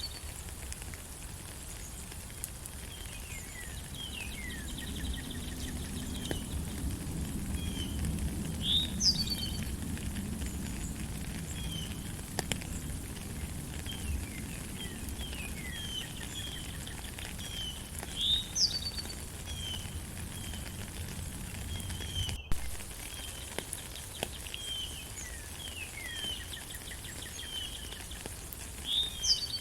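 Steady rain falling in a forest under many chirping songbirds. One bird's sharp high call, falling in pitch, comes back about every nine to ten seconds.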